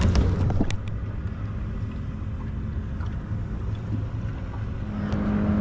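Steady low rumble of a small boat on the water, with a few sharp clicks of gear being handled in the first second. Near the end a steady motor hum sets in.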